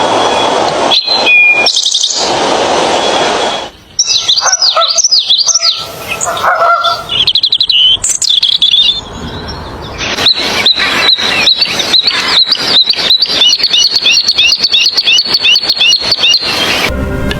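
Birds chirping and singing: a run of varied chirps and whistles, then from about ten seconds in a long series of short repeated notes, three or four a second.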